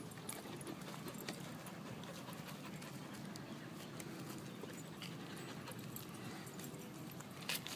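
Dogs panting up close as they move about, with scattered light crunches and clicks from paws on dry leaves and wood mulch; a sharper click near the end.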